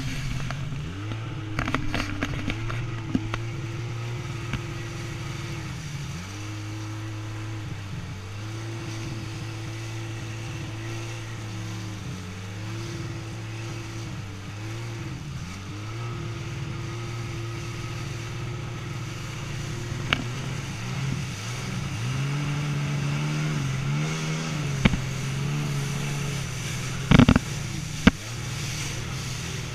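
Personal watercraft engine running hard at speed, its pitch holding steady, then dipping and climbing again several times as the throttle comes off and back on, over a rush of water spray. A few sharp thumps break in, the loudest pair a little before the end.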